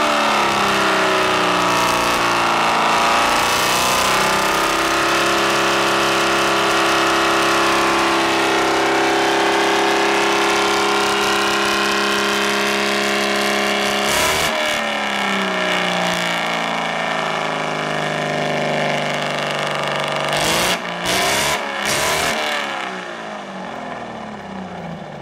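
Straight-piped Detroit Diesel 6-71 two-stroke inline-six in a vintage Crown Coach school bus, running loudly at raised revs. The revs climb in the first second or two and hold steady, fall back about halfway through, and settle to a lower idle near the end.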